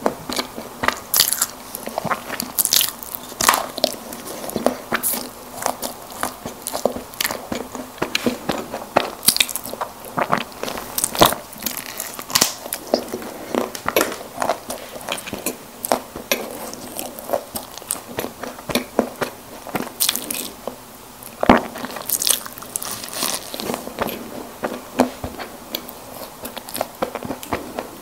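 Close-miked biting and chewing of soft packaged snack cakes: many quick, crisp clicks and small crunches in an irregular run with no pause.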